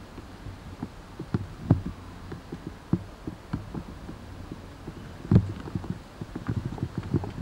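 Irregular low thumps and knocks of footsteps and handling on a hand-held camcorder as it is walked along a paved path, the loudest a little past five seconds in, over a faint steady low hum.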